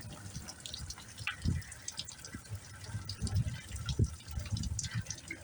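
Rain falling and dripping, with scattered sharp drip ticks and irregular dull low thumps.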